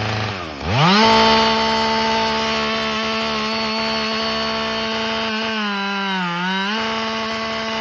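Two-stroke chainsaw revving from idle to full throttle about half a second in, then running at a steady high pitch while cutting the felling notch in a dead tree. Its pitch sags briefly near the end as the chain bogs under load, then picks back up.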